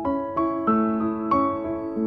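Background piano music: gentle single notes struck about three times a second, each ringing on under the next.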